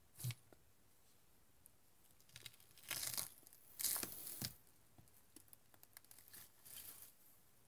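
Crisp raw celery and broccoli tearing and crunching: a short snap near the start, two louder bouts around the middle, then lighter crackles.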